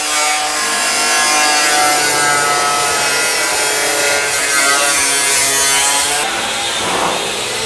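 Angle grinder's cutting disc slicing through the steel floor and chassis leg of a car body shell: a steady high whine over a loud hiss of disc on metal. The hiss eases about six seconds in.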